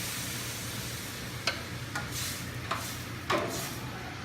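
Chicken stock hitting a hot saucepan of sautéed vegetables and roux, a hiss that fades over the first second. It is followed by four sharp clinks of a utensil against the pan, the last the loudest.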